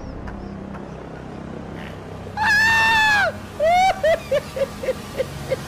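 A woman's loud, high scream, held for nearly a second and then dropping away. A shorter falling cry follows, then a run of quick, fading yelps.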